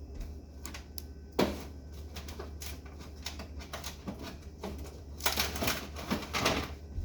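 Food packages and drink containers being handled: irregular clicks and light knocks, one sharp knock about a second and a half in, and a burst of rustling and clatter near the end.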